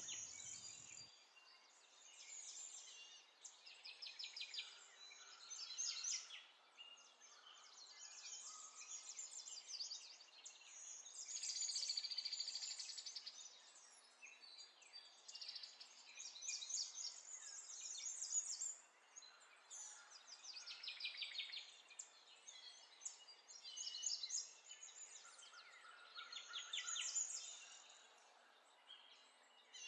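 Faint birdsong: small birds chirping and trilling in short, high phrases every second or two, with brief gaps between them.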